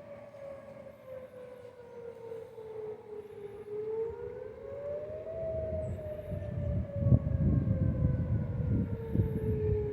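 Outdoor tornado warning siren wailing: its pitch slowly falls, rises again about midway, then falls once more. A low rumble comes up in the second half.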